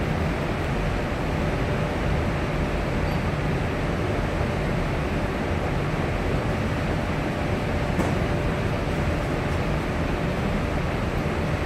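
Steady low rumbling background noise with a faint steady hum running through it, and a single faint click about eight seconds in; no gunshots.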